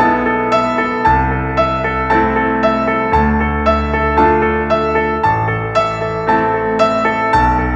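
Background music: a gentle piano-led tune with notes struck about twice a second over slow-changing bass chords.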